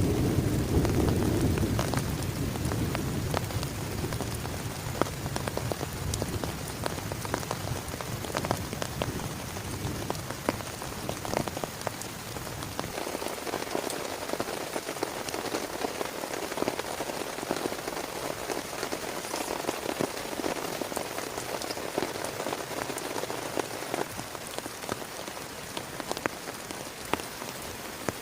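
Heavy rain falling steadily on a surface, with a dense patter of individual drops ticking throughout. A low rumble of thunder fades away over the first dozen seconds.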